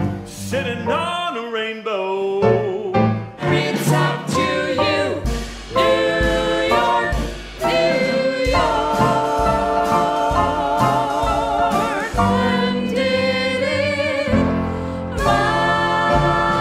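Live stage singing by a small vocal ensemble of men and women with instrumental accompaniment, the voices holding long notes with vibrato over steady low notes. The music changes about eight and a half seconds in.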